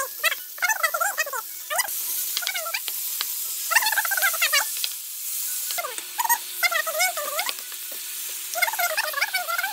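A pan of turkey mince and tomato sauce sizzling while being stirred, with small clicks of the utensil against the pan. Over it comes a high, wavering melodic sound in short phrases, repeating every second or two.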